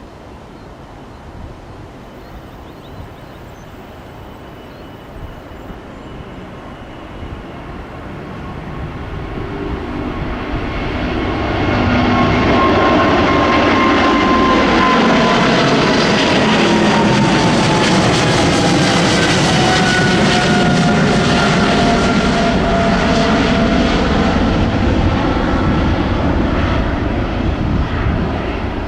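Airliner jet engines spooling up for takeoff: a low rumble that builds over a few seconds, about a third of the way in, to a loud, steady roar at takeoff thrust. Several whining tones in the roar slowly slide lower in pitch.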